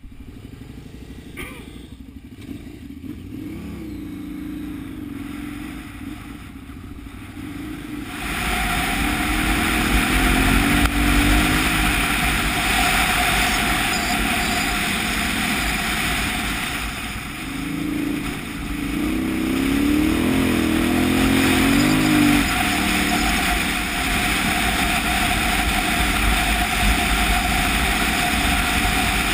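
KTM 990 Adventure's V-twin engine running at low speed, then the motorcycle pulls away about eight seconds in and rides on with a steady rush of wind over the microphone, the engine revving up and down twice as it accelerates and shifts.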